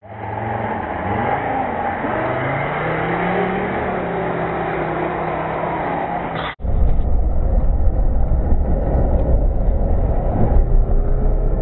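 A Lada Niva's engine revving up and down as the 4x4 splashes through shallow water. About six and a half seconds in it cuts suddenly to a louder, deep engine rumble heard from inside the cabin as water sprays over the windshield.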